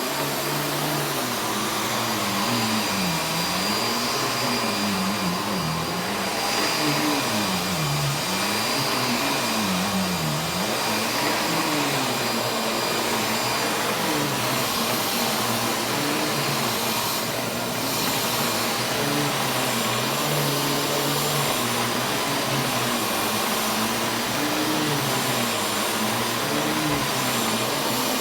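Panasonic MC-6955 11-amp upright vacuum cleaner running steadily: a constant rushing motor noise with a steady whine, under a low hum that rises and falls in pitch every second or two.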